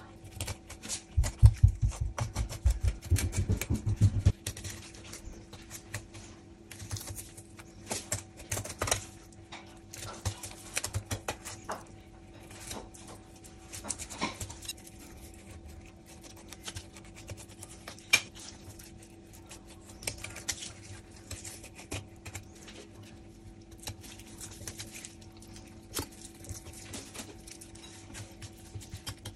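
Knife cutting along a mulloway's body while filleting it on a plastic board: a long run of small crackling clicks and scrapes as the blade works through scales, flesh and along the bones, with heavier low thumps and handling noise about one to four seconds in.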